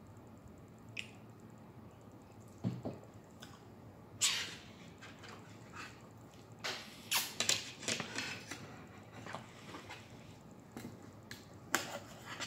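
Knife and fork cutting a fried pork chop on a plate: scattered clicks and short scrapes of cutlery against the plate, busiest about seven to eight seconds in.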